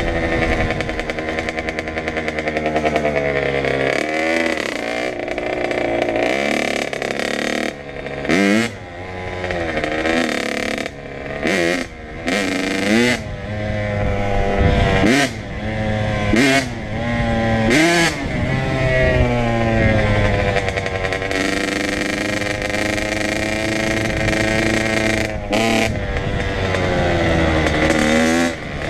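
Kawasaki KX100 two-stroke dirt bike engine under way, its pitch climbing and dropping back over and over as the throttle is opened and shut, with a run of quick sharp rises in the middle.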